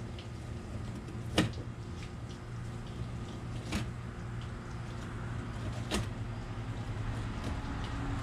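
Fillet knife cutting a flounder on a plastic cutting board, with three sharp knocks about two seconds apart, the first the loudest, over a steady low hum.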